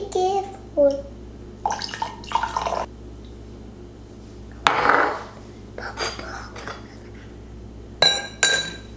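Drinking glasses and a metal spoon clinking and knocking on a tiled counter, with water poured from one glass into another. A sharp, ringing glass clink comes near the end.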